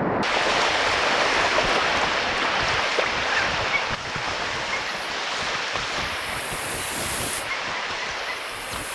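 Swift river current rushing steadily over rocks, a continuous wash of whitewater noise.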